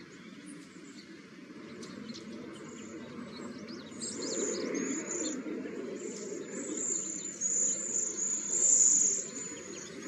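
Cedar waxwings calling: many very high, thin whistled notes that grow louder about halfway through and are loudest near the end.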